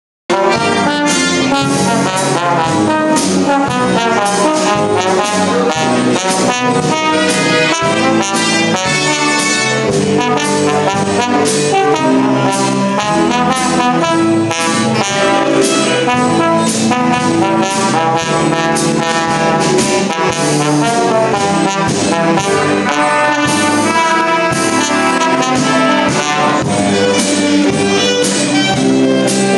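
A jazz dance band of saxophones, trumpets, trombone, tuba and drums playing a 1928 hot-jazz tune, with the trombone out front leading.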